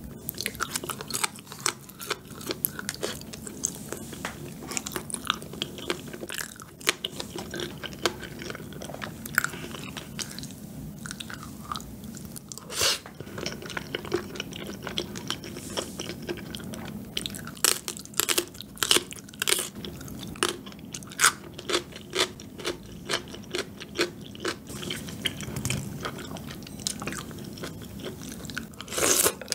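A person chewing mouthfuls of rose tteokbokki, chewy rice cakes and fish cake in a creamy sauce, heard up close as irregular soft mouth clicks and smacks, with a few louder smacks, the loudest near the end.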